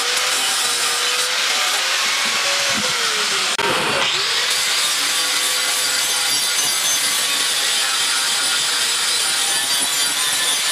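Electric angle grinder with an abrasive disc grinding the edge of a flat steel bar: a steady grinding hiss over the motor's whine. The whine sags briefly about three seconds in.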